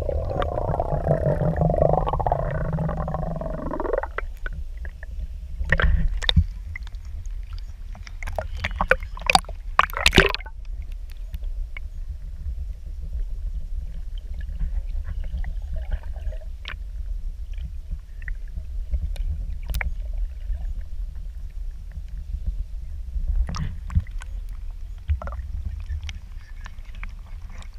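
Muffled underwater noise picked up through an action camera's waterproof housing: a steady low rumble with scattered clicks and knocks, a cluster of sharper knocks around six seconds and again around nine to ten seconds in. For the first four seconds a wavering pitched tone sits over it, then stops abruptly.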